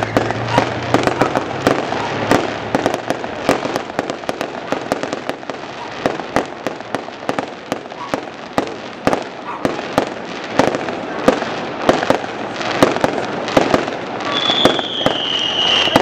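Fireworks display: a rapid, irregular run of bangs and crackles from aerial shells bursting, over a steady hiss. A high whistle sounds near the end.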